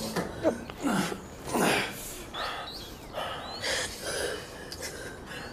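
A woman sobbing, with ragged gasping breaths and short broken cries coming every half second to a second.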